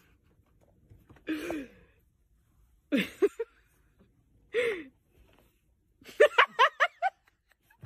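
A person's breathy, wordless vocal sounds: three short gasp-like calls about a second and a half apart, each falling in pitch, then a quick run of short rising-and-falling bursts near the end.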